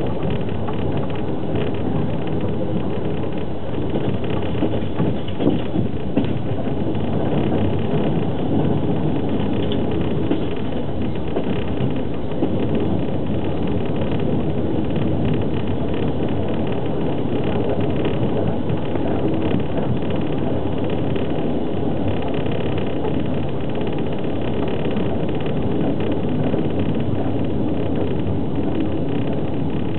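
Fast passenger train running at speed, heard from inside an open-plan sleeper carriage: a steady rumble of the wheels and the carriage.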